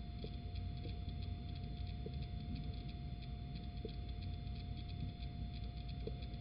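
Steady electrical hum and hiss from a nest-box camera's microphone, with fine even ticking and a few faint short sounds every second or two.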